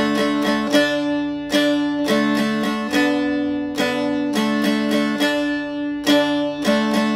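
Instrumental soundtrack music: a plucked string instrument picking quick, repeated notes over steady lower notes.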